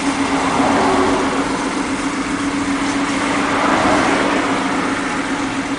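Nissan Elgrand's VQ35DE 3.5-litre V6 idling steadily just after starting, a constant hum over the running noise; the owner says the engine has an unexplained knock and pulls poorly under load.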